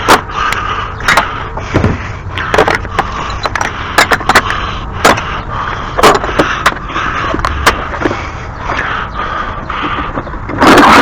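Metal hand tools and sockets clattering and scraping: an irregular string of sharp clicks and knocks with rasping scrapes between them.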